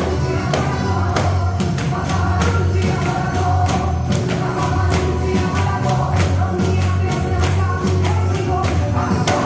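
Gospel worship music: a pandeiro played in a steady, quick rhythm of jingling strokes under singing and backing music.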